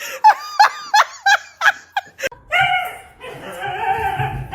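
A person laughing in quick repeated bursts, about three a second, for the first two seconds, then a longer drawn-out sound over a low rumble.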